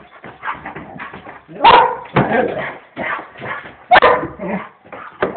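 Dog barking at its own reflection in a mirror: a string of sharp barks, the loudest about two and four seconds in, with quieter sounds between them.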